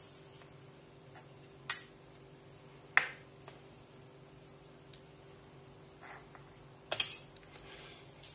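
Metal spoon scraping through frozen ice cream in a plastic tub and clicking against the tub and a small bowl while scooping, a few sharp clacks with the loudest near the end as the spoon is set down.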